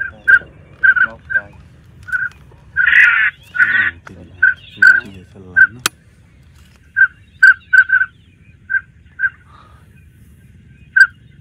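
Ducks quacking in quick, irregular series of short calls, some louder and harsher than others. There is one sharp click about six seconds in.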